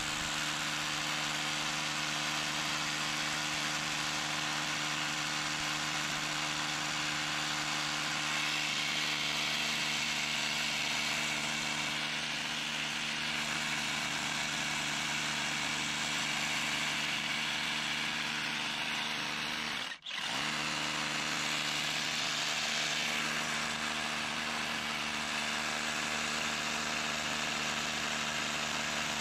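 A small engine or motor running steadily at a constant pitch, dropping out for an instant about twenty seconds in.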